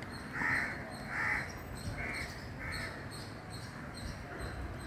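A crow cawing repeatedly, about four caws spaced under a second apart in the first three seconds, over a steady low background rumble.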